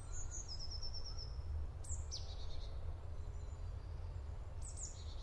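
Songbirds singing: a quick trill of about eight high notes near the start, then short high calls about two seconds in and again near the end, over a steady low rumble.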